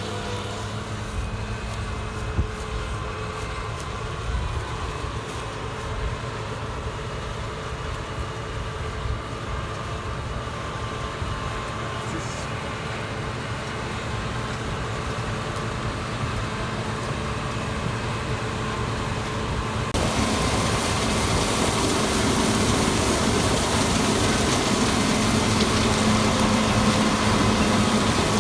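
Combine harvester running steadily through an oat field, a low engine hum under machinery noise. About twenty seconds in it abruptly grows louder, with a dense hiss added.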